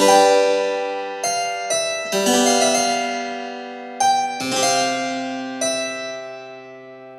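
Background music for the slideshow: a slow keyboard piece, with struck notes and chords that ring on and fade, several new notes over the span.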